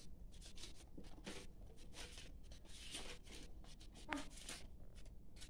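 Soft, irregular rustling and scraping of hands handling vegetables in plastic crates, a string of short brushes and taps, with a brief faint squeak about four seconds in.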